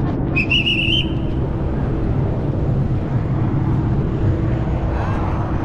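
Steady drone of an engine running, with a low hum that holds an even pitch. Near the start, a brief run of quick high chirps sounds over it.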